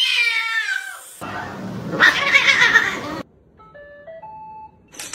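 A domestic cat yowling: one long drawn-out cry that rises and falls in pitch, followed by a loud, rough, noisier cry. Near the end a few short electronic tones sound, like a robot vacuum's beeps.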